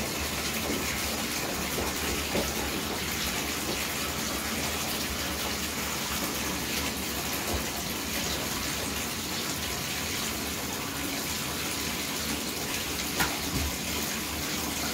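Steady hiss of running water, unchanging throughout, with a couple of faint light knocks.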